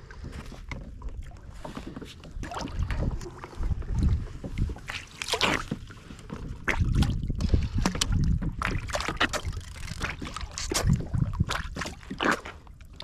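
Water splashing and sloshing as a hooked thornback ray is brought up to the surface beside a kayak, with wind rumbling on the microphone and scattered knocks and clicks from handling the rod and line.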